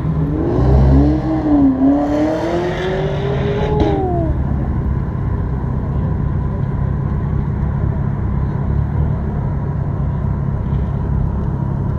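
A car engine revving, its pitch rising and then falling for the first four seconds or so, over a steady low engine sound that carries on after the revs die away.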